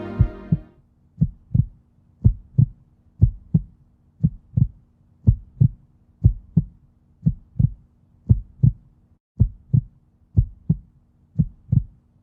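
Heartbeat sound effect: low double thumps, lub-dub, about one beat a second, over a faint steady low drone.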